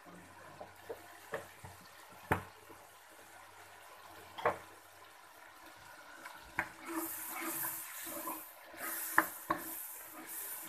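Thick tomato-onion masala with potatoes bubbling and spattering in a pot, with a few sharp clicks of metal on the pot. From about seven seconds in, a louder sizzling hiss joins it as a metal spoon stirs through the gravy.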